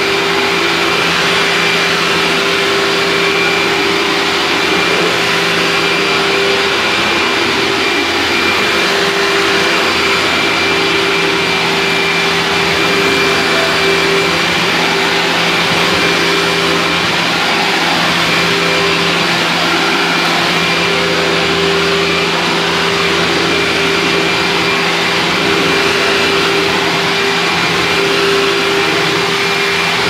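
Dirt Devil self-propelled upright vacuum cleaner running steadily while being pushed over a bare wooden floor: an even rushing motor noise with a steady hum and a high whine in it.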